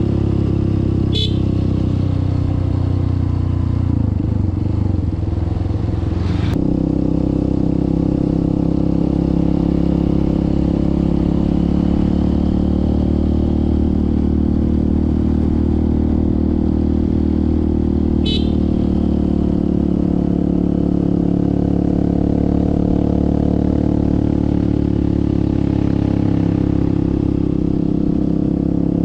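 Motorcycle engine running steadily while riding. Its note changes abruptly about six seconds in. There are two brief high chirps, one about a second in and one past the middle.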